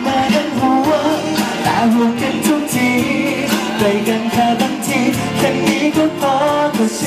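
Thai pop song performed live: a male singer singing into a microphone over a backing track with a steady beat.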